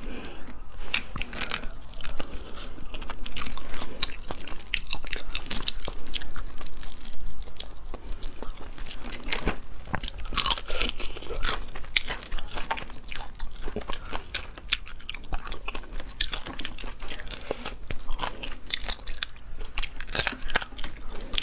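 Close-miked eating of spiced crayfish: shells cracking and crunching as they are peeled and bitten, with chewing, in a quick irregular run of clicks.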